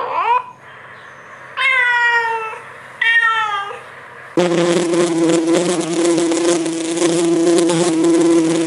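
Three short high-pitched animal calls, the first rising and the next two falling, then a flying insect buzzing loudly and steadily at one pitch from a little under halfway through.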